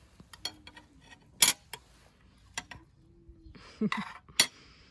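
Dishes and cutlery clinking and knocking: a handful of separate sharp strikes, the loudest about a second and a half in and near the end.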